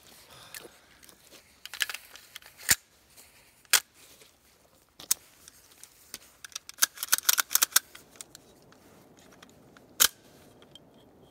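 Handling noise from an AR-15 pistol and its sling hardware: scattered sharp clicks and clacks, with a quick run of clicks about seven seconds in.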